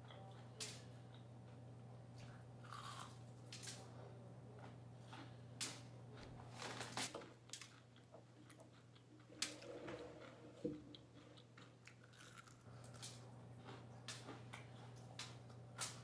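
Close-up crunching and chewing of crispy air-fried chicken wings coated in crushed Flamin' Hot Cheetos, with irregular crackling bites over a steady low hum.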